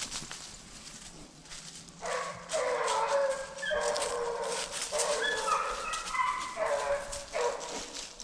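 Hunting hounds baying in long, drawn-out cries, starting about two seconds in and coming in four or five stretches, at times more than one voice at once, as the dogs work a deer's trail.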